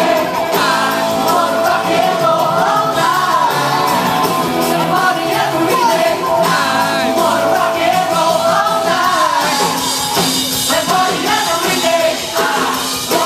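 Live band playing pop-rock music with a singer, loud and continuous.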